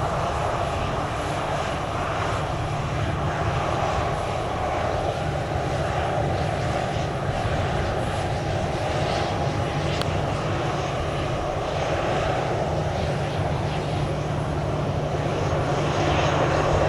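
Airliner jet engines running steadily: an even, unbroken rumble with a low hum.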